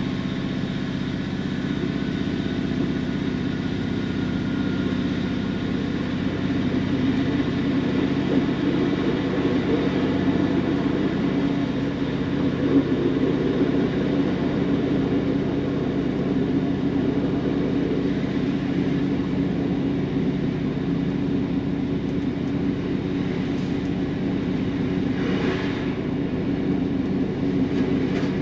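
Class 150 Sprinter diesel multiple unit's underfloor Cummins diesel engine running steadily under power as the train pulls away past the platform and gathers speed, heard from the driver's cab, growing slightly louder after a few seconds.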